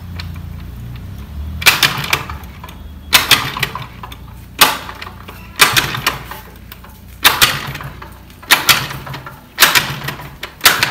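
Old Kinetic Honda scooter's two-stroke engine being kick-started, eight kicks about every second and a half, each a sharp clank of the kick lever followed by a brief turn-over that does not catch: a hard cold start after long disuse, with the choke on.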